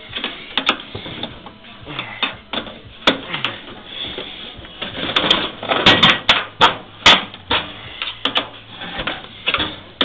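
Irregular metal clicks and clatter of sheet-metal panels and parts being handled as a microwave oven is taken apart, sparse at first and busier about halfway through.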